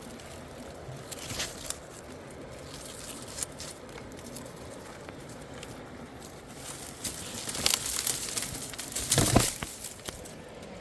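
Rustling and crackling, like material being handled, with scattered clicks that grow into a louder cluster about seven to nine seconds in.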